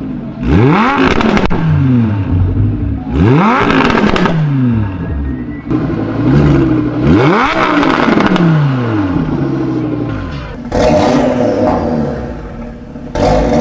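Performance car engine revved hard three times. Each quick rise in pitch drops back through falling revs with exhaust crackles and pops on the overrun. About eleven seconds in, the sound changes to a steadier engine note with more popping.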